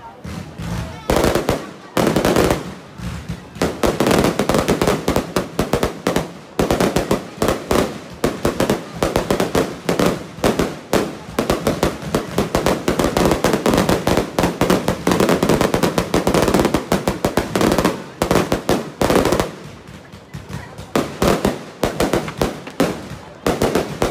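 Fireworks display: a rapid barrage of aerial shell bursts and crackling, densest through the middle and thinning for a few seconds near the end before picking up again.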